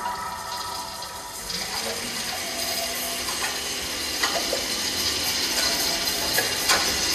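Water running and splashing, with scattered light clinks; a few steady tones sound briefly before the water sound comes up about a second and a half in.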